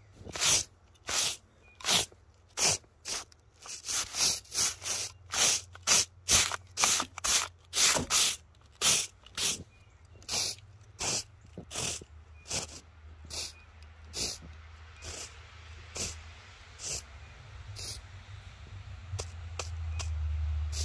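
A broom sweeping snow out of a miniature-railway track switch: about thirty short, brisk swishing strokes, quickest in the middle at about two or three a second, then slower and fainter. A low rumble builds near the end.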